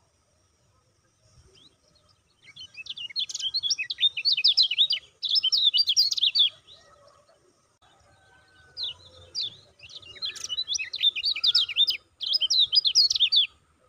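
A white-eye sings in rapid runs of sharp, high chirping notes. There are two long bouts, each broken once by a short gap, with a pause of about two seconds between them.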